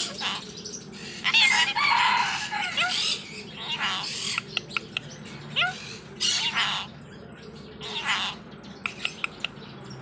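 Blue Indian ring-necked parakeet calling in about five short bursts, with a few sharp clicks in between.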